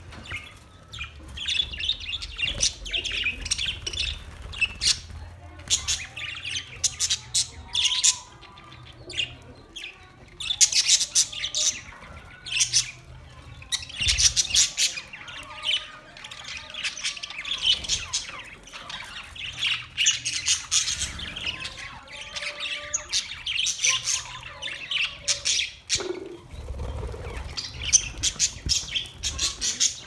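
A flock of budgerigars chattering together in rapid runs of high chirps and squawks, with brief lulls between bursts.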